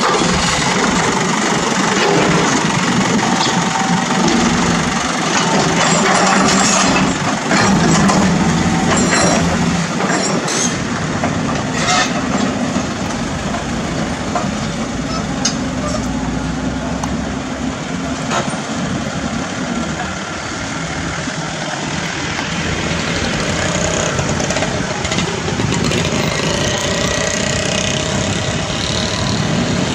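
Diesel engines of an Isuzu Elf dump truck and a Cat 320D hydraulic excavator running steadily. Scattered metallic clanks and knocks come through, mostly in the first half, as the excavator digs soil.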